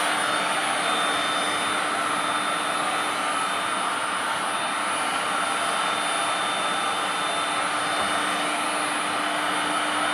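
Electric heat gun running steadily, its fan blowing a rushing stream of hot air with a low hum and a faint high whine.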